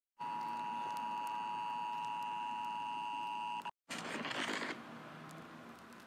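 Emergency alert system attention tone: a steady electronic two-tone beep held for about three and a half seconds, then cut off abruptly. After a brief gap a burst of hissing static follows and fades to a fainter hiss.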